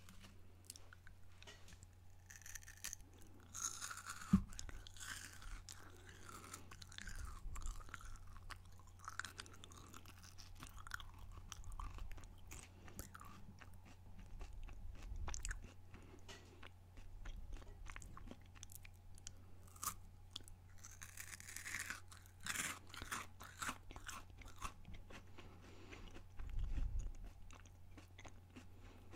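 Kit Kat wafer chocolate being bitten and chewed right at the microphone: crunching and many small crackles, with one sharp bite-crack about four seconds in.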